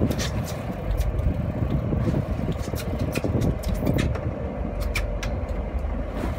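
Boat engine running with a steady low rumble, under irregular sharp clicks and knocks from the rod and reel as a hooked fish is played.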